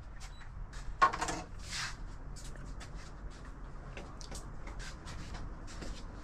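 Bamboo door of the cottage room moving, with a short creak and knock about a second in, then faint scattered clicks and knocks.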